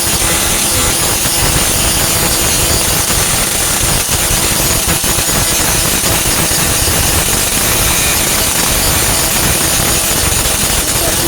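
A 4-1/2 in. angle grinder with a grinding disc running steadily against the sheet steel of a truck tailgate, grinding the weld repairs flush, with no pause.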